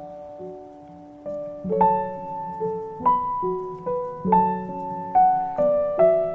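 Background music: a slow, gentle piano piece. It is soft for about the first second, then a new note or chord sounds about every half second, each ringing and fading.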